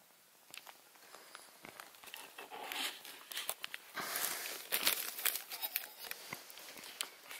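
Irregular crinkling and crunching movement noise close to the microphone, with many sharp clicks. It is loudest from about two and a half to five seconds in.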